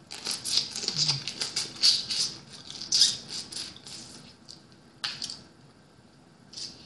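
Close mouth sounds of eating a boiled blue crab leg: wet smacks, sucking and crackling as the meat is drawn from the shell, in a dense run for about four seconds, then a few single ones.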